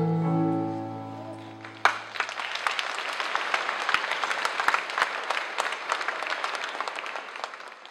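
The song's final held chord dies away, then audience applause breaks out suddenly about two seconds in and carries on, tapering off near the end.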